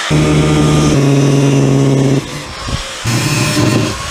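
Ridgid angle grinder with a cut-off wheel running and cutting into an oil pan, trimming it where it hits. The motor's steady whine and the cutting hiss drop off about two seconds in and come back about a second later.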